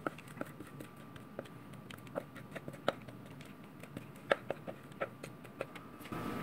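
Faint scattered small clicks and taps as thick cake batter is poured from a glass bowl into a round metal cake pan, with a few louder ticks about three and four seconds in.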